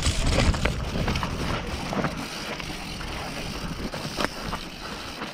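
Mountain bike rolling down a rocky dirt singletrack: tyre noise with frequent knocks and rattles from the bike as it hits rocks and roots, loudest in the first second, with a sharp knock about four seconds in. Wind noise on the camera microphone runs underneath.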